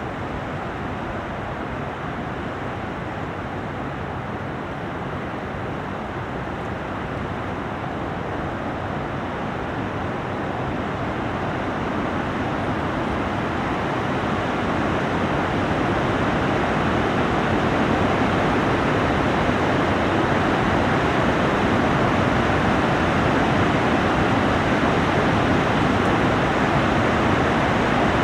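Strong storm wind blowing through trees, a steady rushing noise that slowly grows louder.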